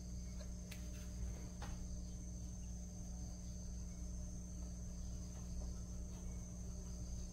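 Quiet background of a steady high-pitched whine over a low hum, with a couple of faint ticks in the first two seconds.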